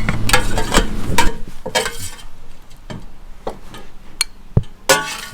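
Kitchen utensils and pots being handled: a string of separate clinks and knocks of metal and glassware.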